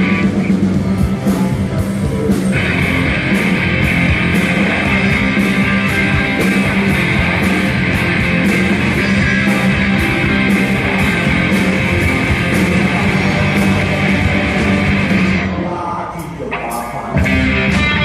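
Rock band playing live during a sound check: loud electric guitar over drums with steady cymbal hits. The music thins out briefly near the end, then the full band crashes back in.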